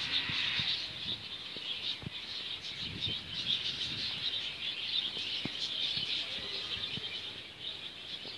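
A flock of small aviary birds chirping and twittering together in a continuous high-pitched chatter, with a few faint low knocks underneath.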